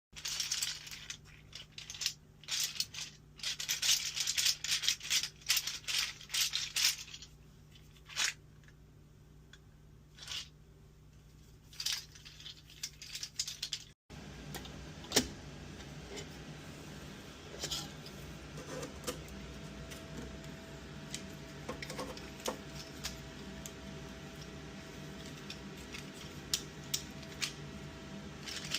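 Light plastic clicking and rattling from a print-in-place, fully articulated 3D-printed skeleton hand, its jointed segments knocking together as it is moved, in quick bursts and then a few scattered clicks. About halfway through, the sound cuts to a faint steady hum with only occasional clicks.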